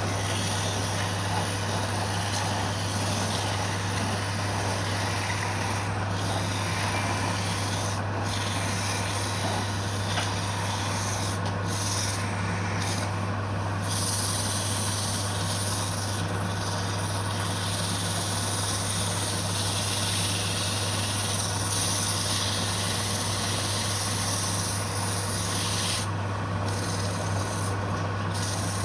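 Wood lathe running steadily with a constant motor hum, while something rubs against the spinning wood with an even rasping noise. The rubbing lets up briefly several times.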